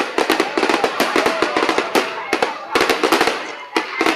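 Fireworks crackling in a dense, rapid run of sharp pops, dozens a second, with a brief lull shortly before the end.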